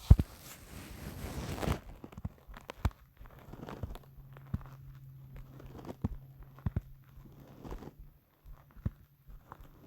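Rustling and rubbing for the first couple of seconds, then scattered soft clicks and a low steady rumble held for several seconds from about four seconds in: a human stomach growling.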